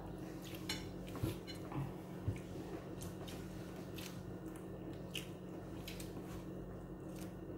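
Quiet eating: chewing and scattered small clicks as fingers pick at crispy fried fish, over a steady low hum.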